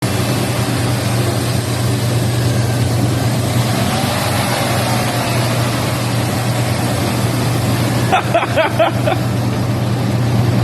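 Car engine idling with a steady hum under a constant hiss of coolant spraying out of a radiator that leaks because it was dropped before it was installed.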